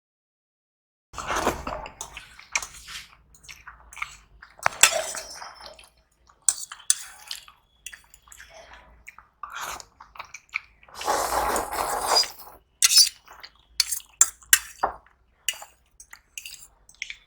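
Close-up eating sounds from a meal of noodles, carrot cutlet and fries: wet chewing broken by three louder noisy spells of a second or so, with scattered clicks and clinks of cutlery and dishes.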